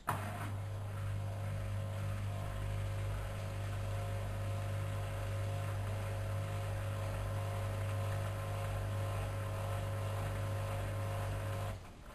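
Studio WM26AAA washing machine giving a steady electric hum that starts abruptly and cuts off abruptly near the end.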